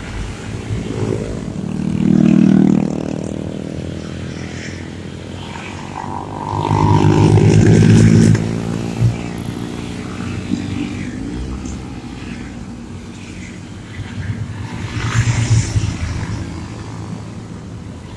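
A group of motorcycles riding past one after another, each engine swelling loud as it goes by and fading away. The loudest pass-bys come about two seconds in and around seven to eight seconds in, with another near the end.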